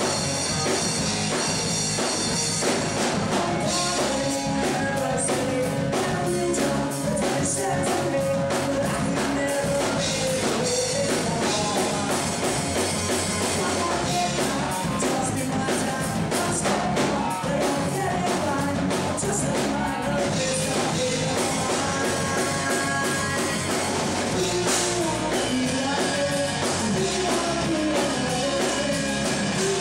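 Live rock band playing with singing, drum kit and guitars, recorded in the room of a bar.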